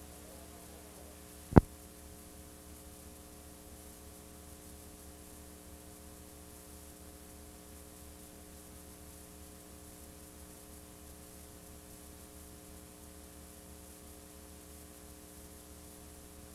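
Blank VHS tape playing back: a steady mains hum with faint hiss, and one sharp click about a second and a half in.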